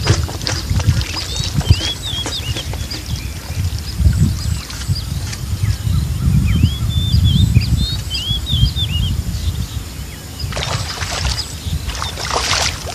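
Small birds chirping in many short, rising calls over a steady low rumble. Near the end comes a brief rushing noise.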